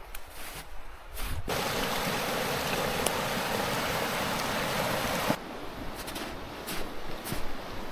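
Rushing water of a stream, a steady even rush that starts suddenly about a second and a half in and cuts off suddenly near two-thirds of the way through. Before and after it there are scattered light ticks and rustles.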